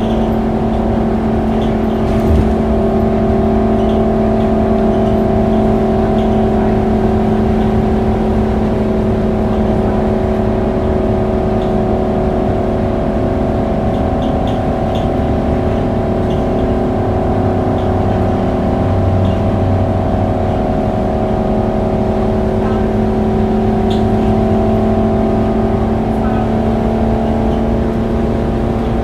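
Scania K280UB city bus heard from inside the passenger cabin while driving: the rear-mounted 9-litre five-cylinder diesel and driveline give a steady drone over tyre and road noise. The pitch eases slightly midway, then climbs again as the bus picks up speed.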